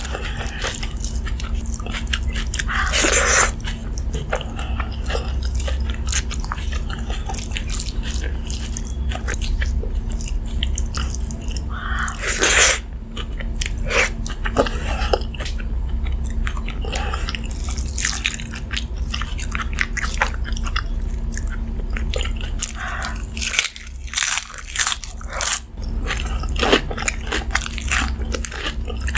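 A person chewing and crunching crisp food close to the microphone, in irregular bites with several louder crunches. A steady low hum runs underneath.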